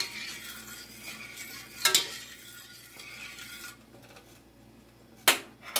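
Metal spoon stirring gravy in a stainless steel pot, scraping against the pot, with a few sharp clinks of spoon on metal. The stirring dies down a little past halfway, and two sharp clinks come near the end.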